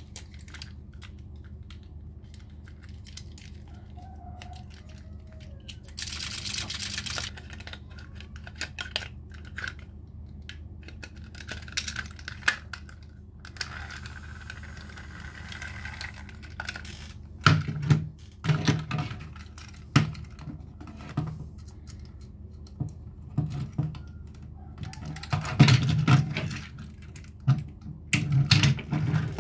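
Toys being handled by hand: scattered small clicks and taps, a brief tearing or rustling rasp about six seconds in, and heavier knocks and clatters through the second half.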